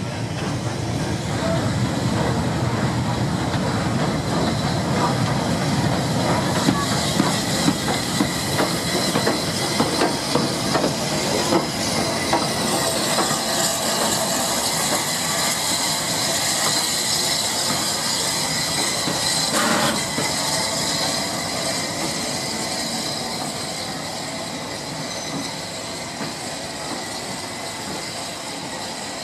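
Southern Railway S15-class 4-6-0 steam locomotive No. 847 rolling slowly in past the platform, tender-first, its wheels clicking over the rail joints and steam hissing. Its coaches follow it by, and the sound eases off towards the end.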